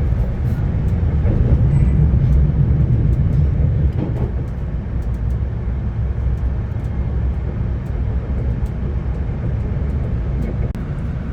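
VIA Rail passenger train heard from inside the coach: a steady low rumble of the train running along the track, easing slightly about four seconds in, with a few faint clicks.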